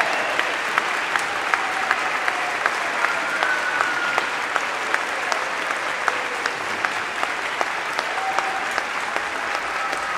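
Audience applauding, with sharp claps standing out in a steady beat of about three a second.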